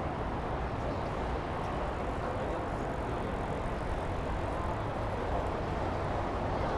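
Steady urban night ambience: an even wash of noise with a constant low hum underneath and no single event standing out.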